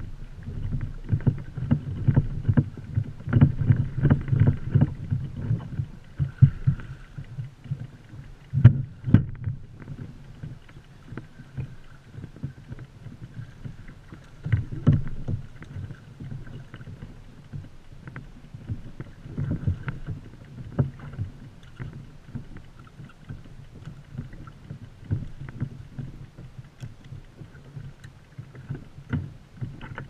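Choppy water slapping and knocking against a fishing kayak's hull, over a low wind rumble on the microphone. The sharp knocks come irregularly, thickest in the first few seconds, with single loud ones about 9 and 15 seconds in.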